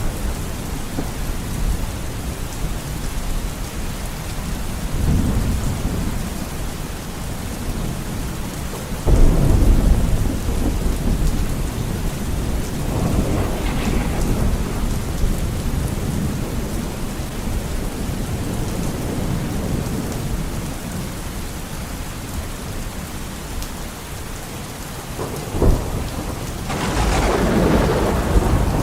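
Thunderstorm: steady heavy rain with thunder rumbling again and again. A sudden loud clap and rumble comes about a third of the way in. A short sharp crack comes near the end, followed by another loud, long rumble.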